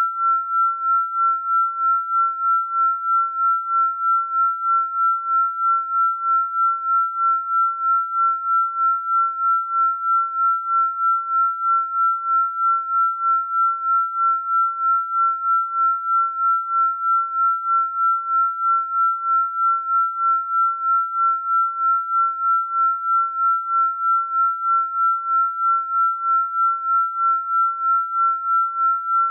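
Electronic pure sine tone held at one high pitch, swelling and fading evenly about two and a half times a second: a binaural-beat healing-frequency tone.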